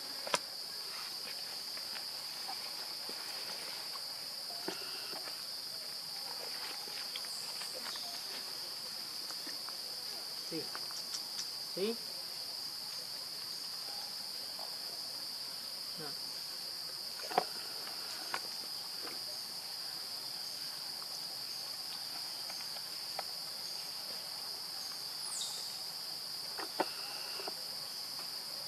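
A steady, high-pitched insect drone that holds unbroken throughout, with a few scattered short clicks and knocks over it.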